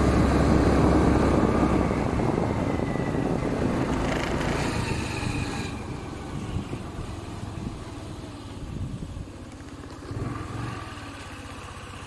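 Vehicle engine and road noise while riding along, loud at first and getting steadily quieter through the first half, then staying low.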